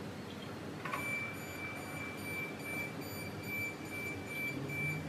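Electronic alarm beeping outside the home: a high, piercing tone pulsing rapidly, starting about a second in, over a steady background hiss.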